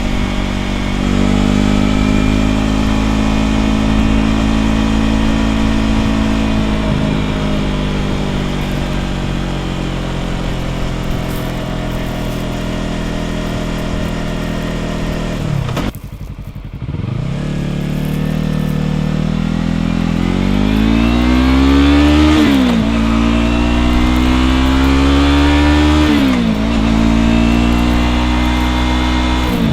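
2015 Yamaha R3's parallel-twin engine running through an aftermarket slip-on muffler while riding. The engine note holds and slowly falls, dips briefly about halfway, then revs up and drops sharply twice as it shifts up.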